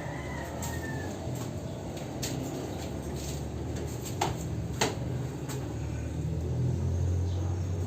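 A low, steady rumble, like a running engine, with two sharp clicks a little past the middle; the rumble grows louder near the end.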